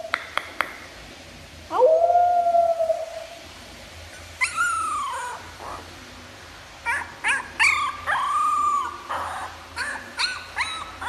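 A dog howling and whining: a long held call, then a falling cry, then a run of short rising-and-falling yelps near the end.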